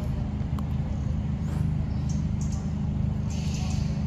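Steady low mechanical hum, with a few short, faint high chirps over it.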